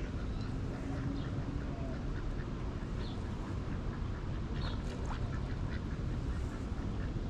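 Ducks quacking and calling in short scattered notes over steady background noise.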